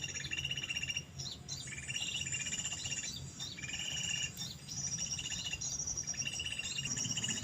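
Small birds singing: short, rapid trilled chirping phrases repeated about once a second at two different pitches, over a steady low hum.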